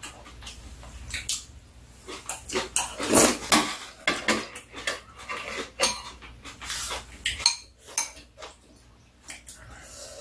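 Metal spoons and chopsticks clicking and scraping against bowls, with the mouth noises of two people eating kimchi stew.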